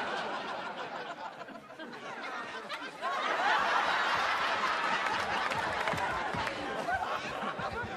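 Studio audience laughing, the laughter swelling louder about three seconds in and carrying on.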